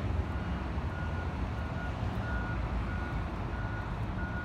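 Reversing alarm beeping steadily, one short tone about every two-thirds of a second, over a steady low rumble.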